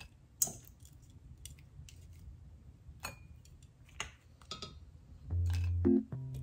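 A handful of light clicks and taps, a second or so apart, as chopsticks pick up cooked shrimp and knock against the bowls. Background music with a low bass line comes in about five seconds in.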